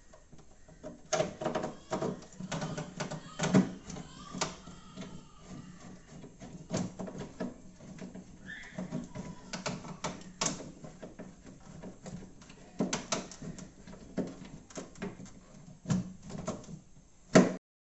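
Irregular clicks and knocks of plastic fridge parts being handled and fitted by hand, busiest in the first few seconds, with one sharp knock near the end.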